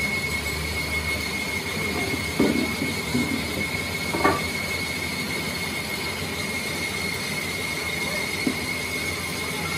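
A workshop machine running with a steady high-pitched whine over a noisy background. Two brief knocks come about two and a half and four seconds in, as a metal measuring tool is handled.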